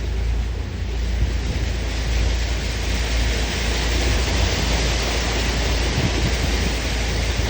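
Steady rushing wind and water noise with a deep, constant rumble underneath, as heard aboard a moving Mekong slow boat, the wind buffeting the microphone.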